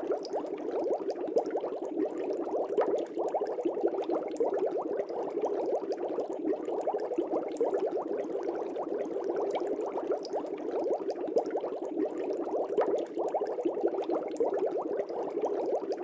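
Air bubbles rising in a fish tank, bubbling steadily: a dense, unbroken stream of small pops and gurgles.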